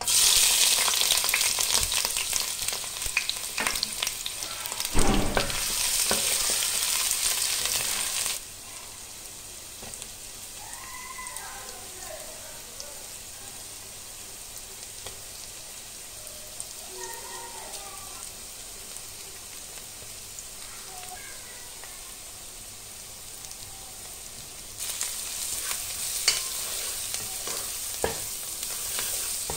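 Sliced onions and green chillies hitting hot oil in a pan and sizzling loudly, stirred with a spatula, with a knock about five seconds in. The sizzle drops suddenly to a much quieter hiss for the long middle stretch, then turns loud again near the end with a few scrapes and clicks of the spatula.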